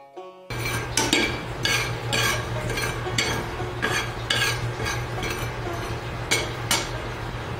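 Flat metal spatula scraping and stirring whole spice seeds in a non-stick frying pan, in repeated strokes roughly two a second with a short pause near the middle, over a steady low hum.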